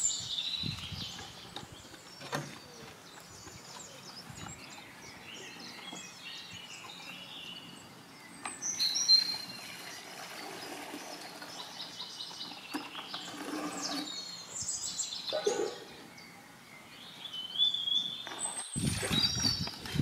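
Small birds chirping and calling on and off, with water poured from a plastic bucket into an aluminium pot about halfway through.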